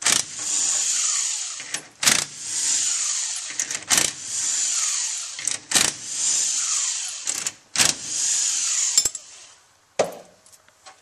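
Power screwdriver whirring as it backs out the solenoid bolts of a Mitsubishi automatic transmission valve body, one bolt at a time. There are five runs of about a second and a half each, with sharp clicks between them. The driving stops about two seconds before the end, and a single metal knock follows.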